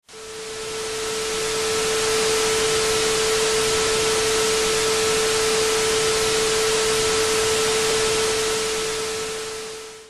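A steady hiss of static with a single pure tone held underneath, like a test tone. It fades in over about two seconds and fades out at the end.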